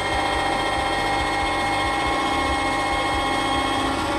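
Gasoline engine of a Ferris ProCut S three-wheel commercial riding mower running steadily.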